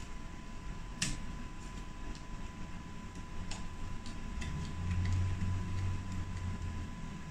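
Irregular sharp little clicks and scrapes, the loudest about a second in, as a flat-blade screwdriver tip scrapes flakes of leftover glue off an iPhone 8 Plus's metal housing. A steady low hum swells in about five seconds in, over a faint steady high tone.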